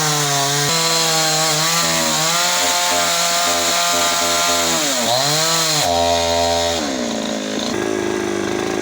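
Two-stroke chainsaw running at high revs while cutting into a fallen tree, its pitch wavering under load. It sags sharply and recovers about five seconds in, then drops to a lower, idling pitch near the end.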